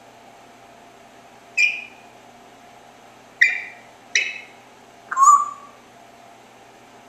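Congo African grey parrot giving four short chirps, a second or so apart. The last chirp is lower in pitch and a little longer than the others.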